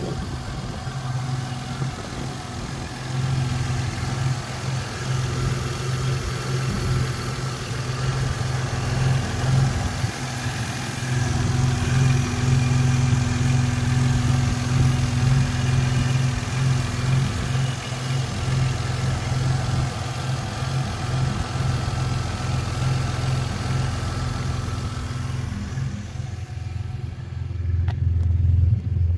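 Mazda 323F V6 engine idling steadily. Near the end the sound turns deeper and duller.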